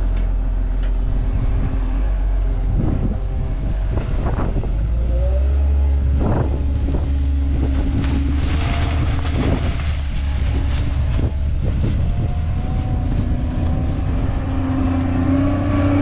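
A New Holland W130 wheel loader's diesel engine running under load, with the revs rising and falling as the grapple bucket digs into and lifts a pile of silage plastic and dirt.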